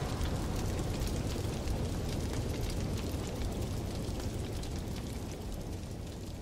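A dense crackling, hissing noise that slowly fades out.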